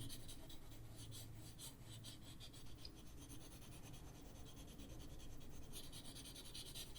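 Prismacolor coloured pencil scratching faintly on paper in quick, short back-and-forth strokes, a little firmer about six seconds in.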